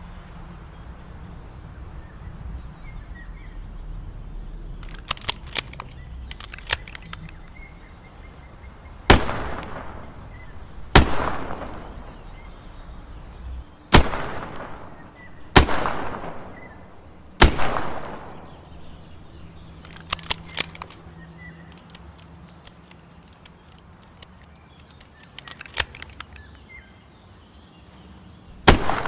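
Smith & Wesson 360J five-shot .38 Special revolver fired five times, the shots about one and a half to three seconds apart, each report ringing out briefly. Light metallic clicks come before and after the string, and another sharp report sounds near the end.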